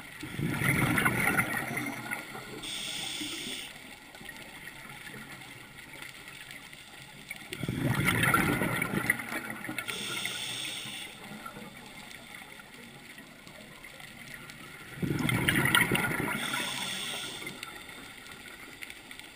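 Scuba diver breathing through a regulator underwater: three exhalations of rumbling bubbles about seven seconds apart, each followed by a short hiss of inhalation.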